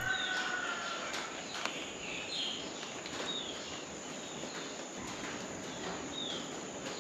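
Wild birds calling outdoors: short, high, falling chirps repeated every second or so over a steady high-pitched hiss of background ambience.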